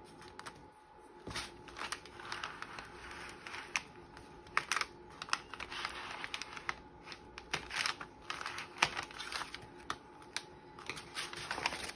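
Paper being handled and pressed down on a craft table: irregular light taps and clicks mixed with rustling.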